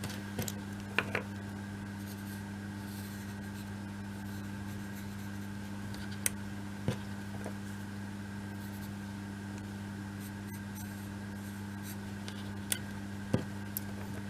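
Light handling of small wooden kit pieces while glue is put on them: faint scratching and a few soft clicks scattered through, over a steady hum.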